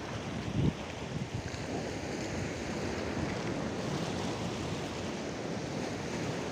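Small sea waves washing and breaking against rocks along the shore, a steady surf, with wind buffeting the microphone, gusting briefly about half a second in.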